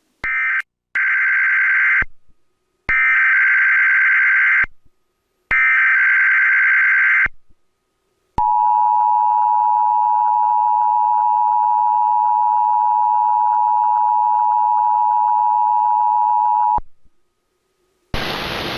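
Emergency Alert System Required Monthly Test. Three bursts of SAME header data, the screechy digital warble, each about two seconds long, are followed by the EAS two-tone attention signal (853 and 960 Hz together). The attention signal is held steady for about eight seconds and cuts off sharply.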